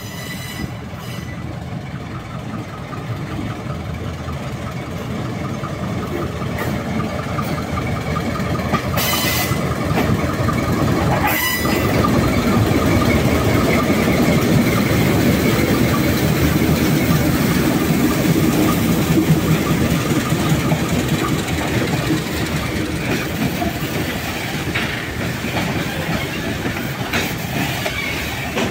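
Two GE diesel-electric locomotives, a U15B and a U13B, haul a loaded ore train slowly past. Their engine noise grows louder as they approach and is loudest as they pass about halfway through, with two short hisses along the way. The rumble and clatter of the loaded hopper wagons rolling over the rails follows.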